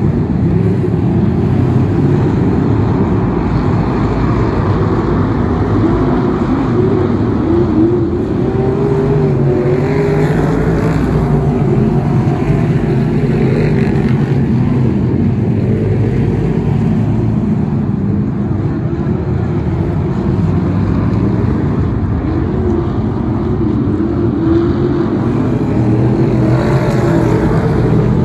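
Several BRISCA F1 stock cars' V8 engines running flat out in a race, a steady engine drone whose pitch rises and falls as the cars lap the track and pass.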